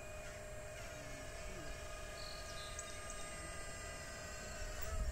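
Radio-controlled scale model crawler excavator running, a steady electric whine from its drive while the upper body swings round.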